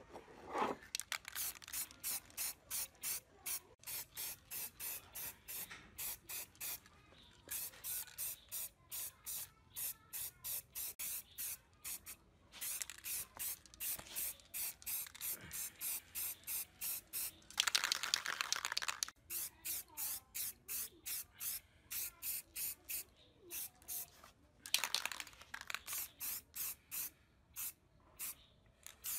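Aerosol can of acrylic spray paint spraying in short quick puffs, about three a second, with a longer continuous spray of about a second and a half two-thirds of the way through and a shorter one near the end.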